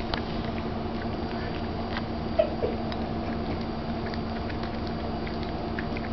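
Cats eating a treat: scattered soft clicks of chewing, with one short, falling cat call about two and a half seconds in, over a steady low hum.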